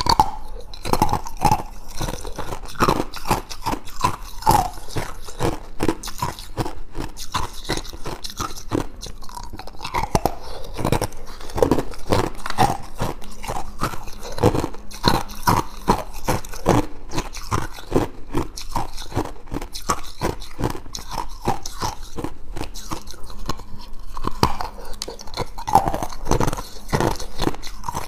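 Clear ice cubes being bitten and chewed: a dense, unbroken series of sharp crunches and cracks.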